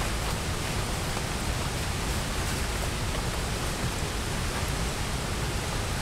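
Steady rain falling, heard as an even hiss with a few scattered single drops ticking.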